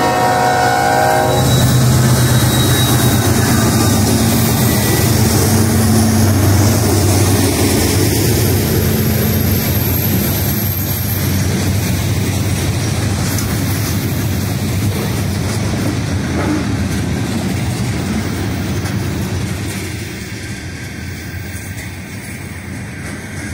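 Norfolk Southern freight train passing a grade crossing. The diesel locomotive's horn blast ends about a second in. The locomotive engines drone by, then the freight cars rumble and clatter over the rails, fading a little near the end.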